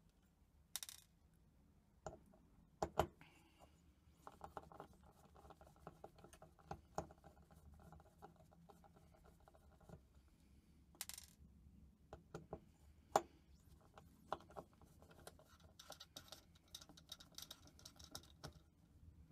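Faint metallic clicks and scrapes of a screwdriver working the small screws of the platter clamp on a hard drive's spindle hub. A few sharper ticks stand out, the loudest about three and thirteen seconds in.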